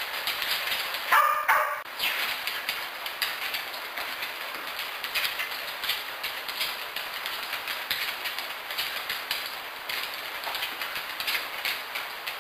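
A dog gives a short, loud bark about a second in. Then come light, irregular ticks and taps of claws on a wooden floor as the dog moves around.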